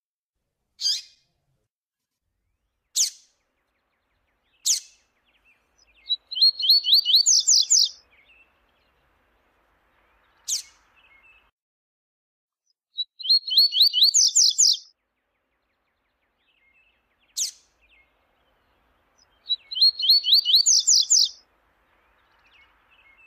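Double-collared seedeater (coleiro) singing. It gives three fast warbled phrases about two seconds each, climbing in pitch at the end, with five single sharp call notes between them.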